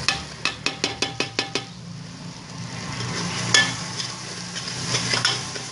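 Masala sizzling in hot oil in a metal pot while a steel ladle stirs it. About eight quick clinks of the ladle against the pot come in the first two seconds, with a few more knocks and scrapes later. This is the frying (bhuna) stage of onion, tomato and ginger-garlic paste with the ground spices just stirred in.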